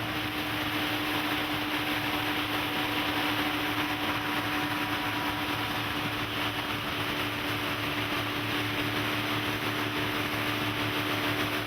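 Twin Yamaha 130 hp V4 two-stroke outboards running at a steady speed: an even engine hum over a rushing hiss.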